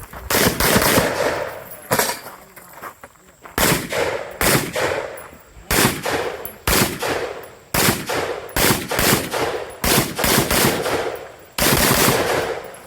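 Semi-automatic rifle fired in quick pairs and strings of shots, a cluster about every second, as a practical-shooting stage is shot through.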